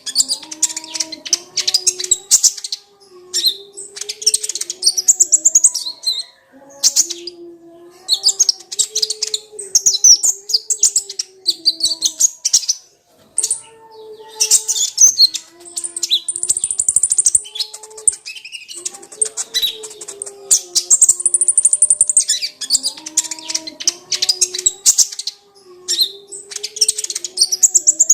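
Kolibri ninja sunbird singing a fast, high-pitched twittering song in bursts of a few seconds, broken by short pauses and repeated again and again.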